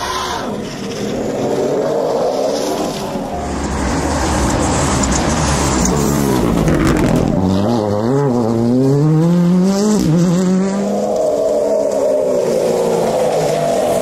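Rally cars passing at speed: a Ford Fiesta rally car's engine revs up and down through the gears in the middle, loose gravel scattering under its tyres as it slides. Fainter, smoother whines of Opel Corsa electric rally cars come at the start and near the end.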